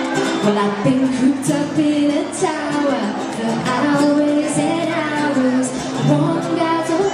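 Pop song performed live, a singer's held and gliding notes over musical accompaniment.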